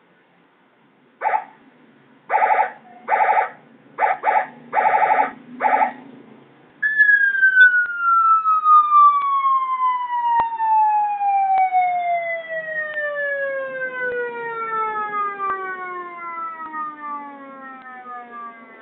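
Custom-made multi-tone electronic vehicle siren: about seven short, steady-pitched horn-like blasts, then a single long tone that falls slowly in pitch from high to low.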